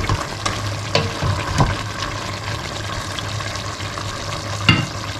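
Pork and green beans in shrimp paste cooking in a stainless steel pot with a steady hiss, while a wooden spatula stirs and knocks against the pot a few times, the loudest knock near the end. A steady low hum runs underneath.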